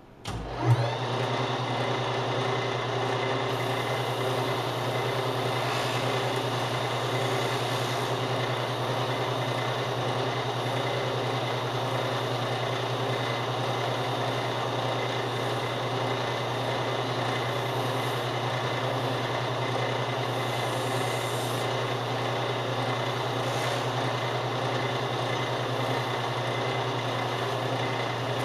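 Metal lathe starting up about half a second in, then running steadily at speed with a low hum and a set of steady whining tones, while a strip of sandpaper is held against the spinning stainless steel pin to buff it.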